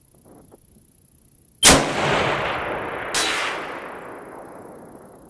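A single precision-rifle shot: a loud sharp crack, a second sharp crack about a second and a half later, then a long rolling echo that fades away.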